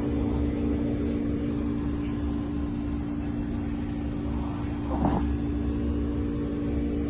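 Shih Tzu snoring in deep sleep, a low rumble that swells and fades with each slow breath, over a steady electrical hum. There is a short, louder sound about five seconds in.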